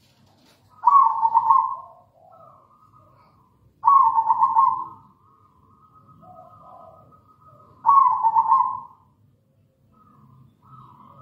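Zebra dove (perkutut) cooing: three loud rolling coos about three to four seconds apart, each a quick run of notes lasting about a second, with softer sounds between them.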